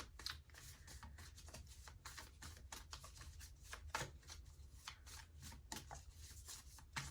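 Tarot cards being shuffled by hand: faint, quick, irregular clicks and rustles of cards against each other.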